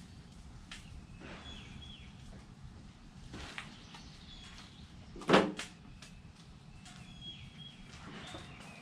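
Birds chirping now and then over a steady outdoor background, with scattered faint clicks. A single loud knock about five seconds in.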